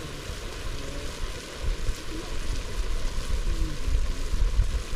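Gusts of wind rumbling on the microphone, strongest in the second half, over a steady hiss of meat simmering in its juices in a metal pot over a wood fire.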